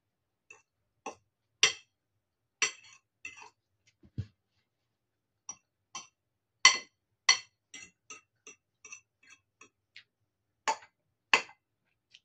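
Metal fork clinking and scraping against a ceramic bowl while noodles are twirled and eaten: a scattered run of short, sharp clinks with gaps between them, and one duller thud about four seconds in.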